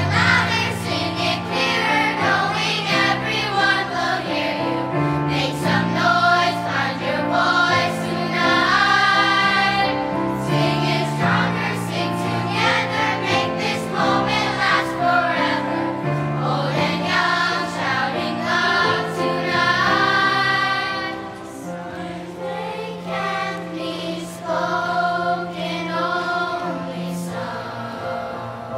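A school choir singing, growing softer about two-thirds of the way through.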